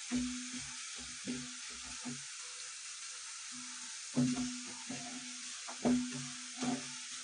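Chopped garlic frying in hot mustard oil in a kadhai, a steady sizzle as it browns. A wooden spatula stirs it, scraping and knocking against the pan, with a few louder knocks in the second half.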